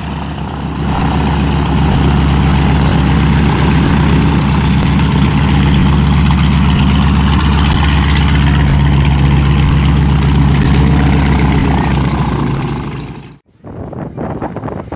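Vintage warbird's radial piston engines running steadily and loudly close by. About 13 seconds in the sound breaks off abruptly, and a fainter engine sound follows.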